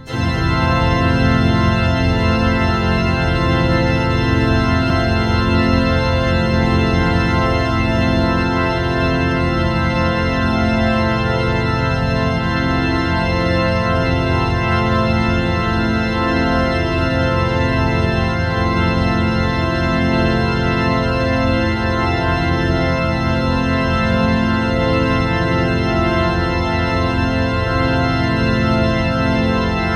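A sustained electronic chord, many steady organ-like tones sounding together and held unchanged, with a fast flutter in the lowest notes.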